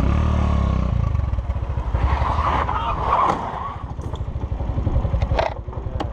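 Motorcycle engine running at low speed with a steady, evenly pulsing low throb. It gets louder and noisier for about a second around two to three seconds in, and a couple of sharp knocks come near the end.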